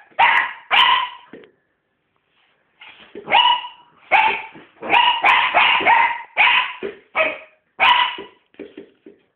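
Sealyham terrier barking over and over: two barks, a pause of about a second and a half, then a quick run of barks that ends in a few shorter, softer ones.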